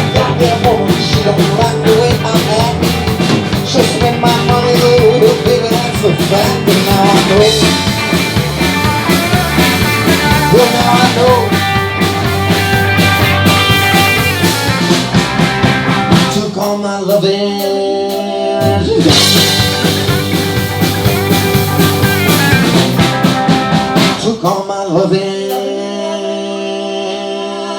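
Live band playing a song with drums and bass. About two-thirds of the way through, the drums drop out for a couple of seconds under held chords, then come back. The song closes on a long held chord near the end.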